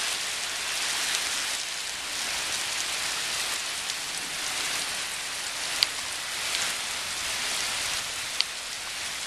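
Steady rain falling during a thunderstorm, with two short sharp ticks about six and eight and a half seconds in.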